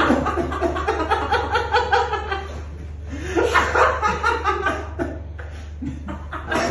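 A man in a fit of hysterical, uncontrollable laughter: rapid pulsing laughs in loud bursts, easing about midway, then flaring again and once more near the end.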